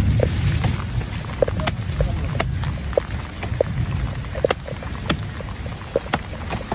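Knife chopping fish on a chopping block: irregular sharp knocks, about a dozen, over a steady low rumble.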